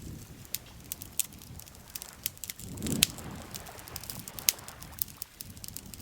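Wood campfire crackling with frequent sharp, irregular pops, over a soft low wash of lake water lapping that swells briefly about halfway through.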